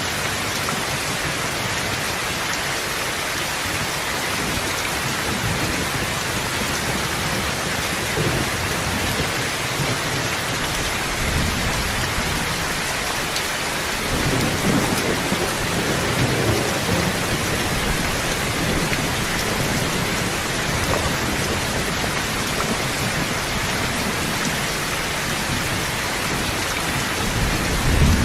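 Steady rain with low thunder rumbling in the background, swelling about halfway through and again near the end.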